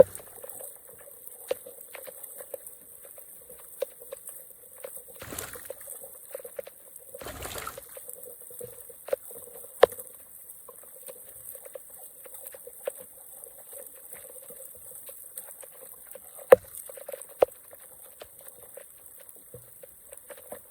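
Water trickling and gurgling through a drain blockage, with many small drips and clicks, a few sharper ones, and two short splashing rushes about five and seven seconds in.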